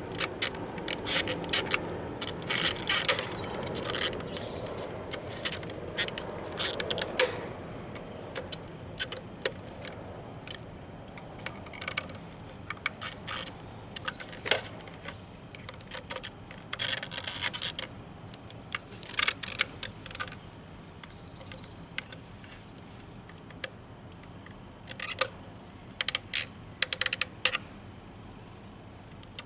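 Repeated bursts of sharp plastic clicking, rattling and scraping as hands work at the clips and retaining ring of the fuel filter assembly, trying to get it to come out. The clicks come in clusters, busiest in the first few seconds and again near the end.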